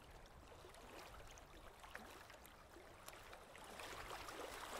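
Faint water lapping and trickling at the surface, with many small splashy ticks, getting a little louder near the end.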